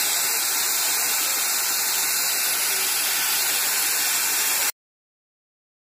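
A steady, loud hiss, strongest in the upper range, that cuts off abruptly about three-quarters of the way through.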